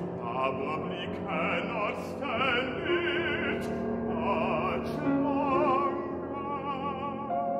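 Classical baritone singing with wide vibrato, accompanied by a grand piano, ending on a long held note.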